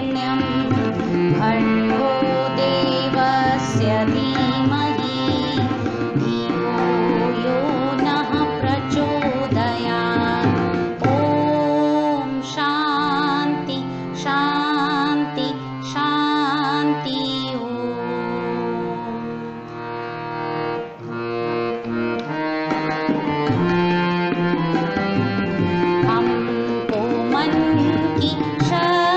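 Prayer song playing: an ornamented sung melody over Indian-style instrumental and percussion accompaniment.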